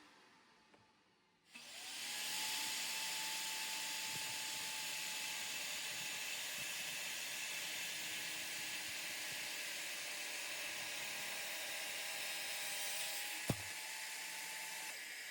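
HiKOKI electric circular saw starting up and running steadily with a high motor whine. There is a sharp knock about two seconds before the end, and the whine drops just before the end.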